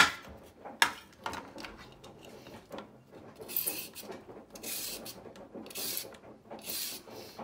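A kitchen knife cuts through a carrot onto a wooden cutting board, a few sharp knocks in the first second and a half. Then a vegetable peeler scrapes down a carrot in strokes about once a second.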